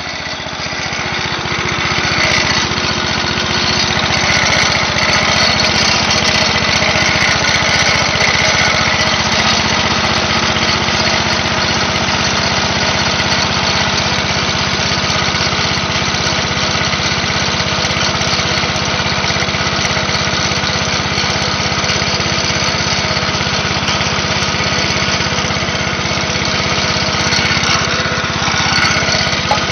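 Speedex garden tractor's 10 hp Briggs & Stratton engine running steadily, just after a cold start on starting fluid. It gets louder over the first couple of seconds, then holds an even note.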